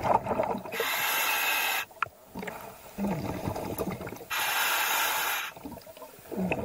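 Scuba diver breathing through a regulator underwater: two long hissing inhalations, each about a second long and about three and a half seconds apart, with quieter breathing sounds between.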